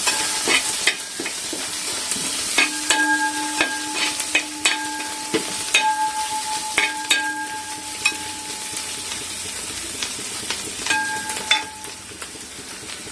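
Onions, ginger, garlic and green chillies sizzling as they fry in oil in a pan, with a spoon clicking and scraping against the pan as they are stirred.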